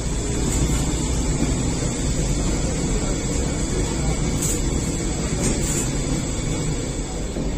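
Steady low rumble of bakery machinery around a rotating flatbread oven, with a few light clicks about halfway through.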